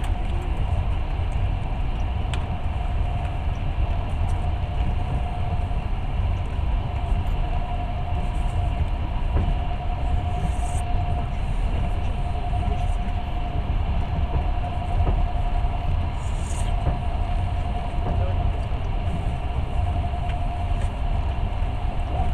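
Long-distance passenger train running at speed, heard from inside a carriage: a steady heavy rumble of wheels on the rails, with a thin steady hum above it.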